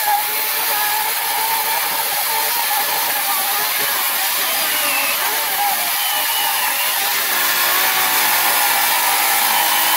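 A 14-inch Harbor Freight corded electric chainsaw runs steadily while its chain cuts through a log. The motor's whine wavers a little as the chain works through the wood.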